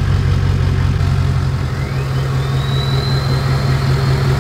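Nissan Titan XD's Cummins 5.0-litre V8 turbodiesel idling steadily, moments after starting.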